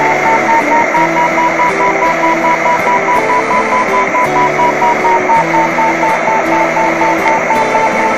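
Glider variometer sounding its climb tone, a rapid, even run of short beeps at one pitch that rises a little and then eases back, over the steady hiss of air past the cockpit.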